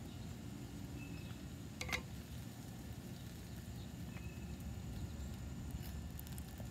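A large Case XX Bowie knife splitting a thin stick of wet wood on a tree stump: one sharp knock about two seconds in and faint light cracks near the end, over a steady low outdoor rumble.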